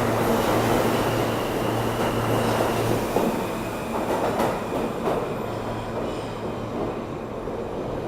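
New York City subway train running on the track through the station: a steady rumble of wheels on rail with a low hum that stops about three seconds in. The whole sound slowly fades.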